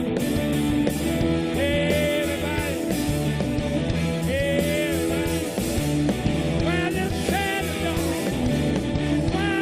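Live rock band playing: guitar, bass and drums, with a voice singing the tune in phrases of about a second each.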